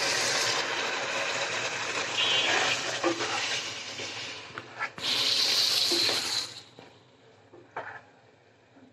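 Duck pieces and spice paste sizzling in a hot pot as they are stirred and turned with a wooden spoon during the kosha frying stage. The sizzle is loud, surges again about five seconds in, then dies down after about six and a half seconds, leaving a few knocks of the spoon.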